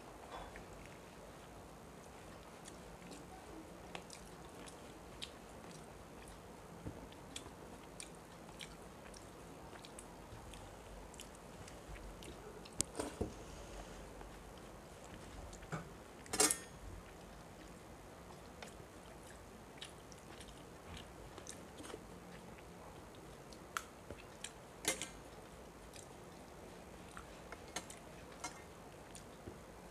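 Faint eating sounds from a person eating rice and fish curry by hand from a steel plate: soft chewing and mouth sounds, with scattered small clicks and a few louder sharp clicks from mouth or fingers on the plate.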